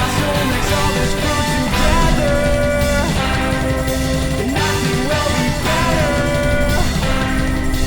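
Background rock music with guitar and a sung melody.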